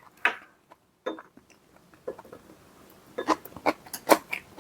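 Cutlery and dishes clinking and knocking: a few separate clicks, then a quick run of them about three seconds in.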